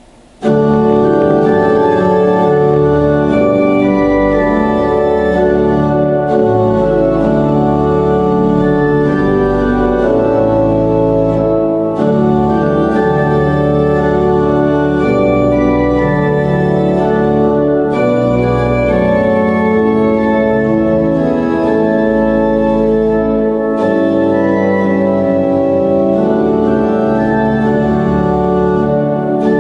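Organ music in slow, held chords, starting abruptly about half a second in, with short breaks between phrases.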